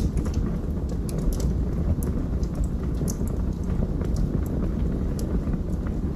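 Wood fire burning in a fireplace: a steady low rush of flames with frequent sharp crackles and pops of the burning logs.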